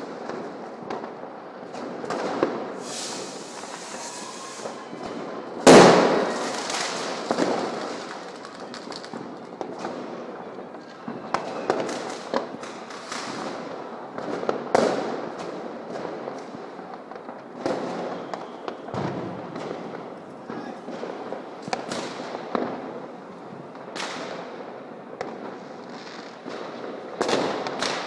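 Fireworks going off all over the city: a continuous din of distant bangs and crackles with irregular louder nearby bangs, the loudest about six seconds in.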